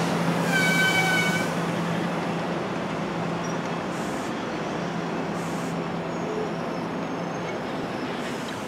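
NJ Transit multilevel passenger train rolling past at close range: steady rumble of wheels on rail with a low steady hum, and a brief high squeal lasting about a second, starting about half a second in.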